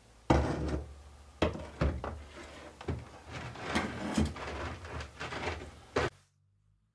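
Handling noise of a rusty steel rod and wires being set on a plastic tub: about seven knocks with scraping between them, stopping suddenly about six seconds in.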